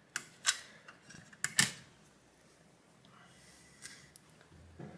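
Four light clicks and knocks of a graphics card's circuit board and bracket being set down onto its backplate, the loudest about a second and a half in, followed by faint handling.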